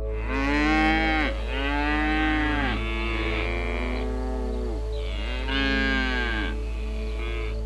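Domestic water buffalo mooing: about five calls in a row, each rising and then falling in pitch, over soft steady ambient music.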